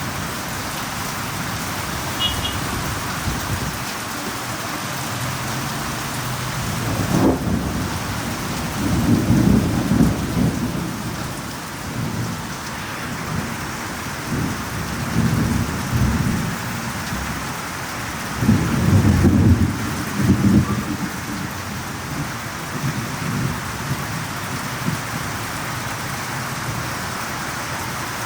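Thunderstorm: steady rain hissing throughout, with several low rolls of thunder. A sharp crack about seven seconds in leads into a rumble, and the loudest rumble comes about two-thirds of the way through.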